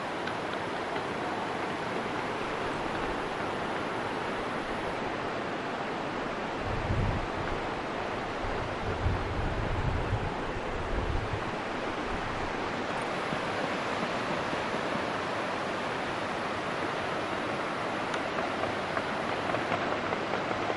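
Steady outdoor rushing noise of wind and open air, with wind buffeting the microphone for a few seconds near the middle.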